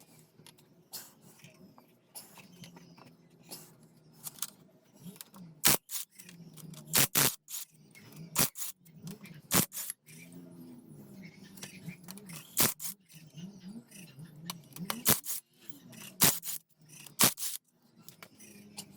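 Sharp metal clicks and clinks of tools and small engine parts being handled during a motorcycle engine teardown, about nine separate knocks spread irregularly through.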